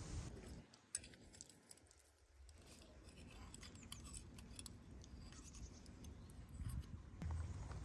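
Faint light clinks and scrapes of a steel fork and spoon against each other and against a ceramic plate as spaghetti is twirled, a scatter of small metallic clicks.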